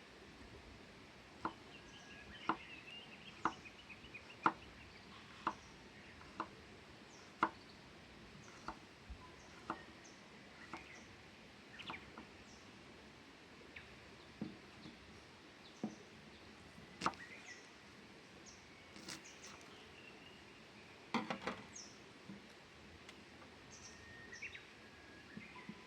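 A series of sharp knocks, about one a second for several seconds, then sparser and irregular with a quick cluster later on, like chopping. Small birds chirp throughout.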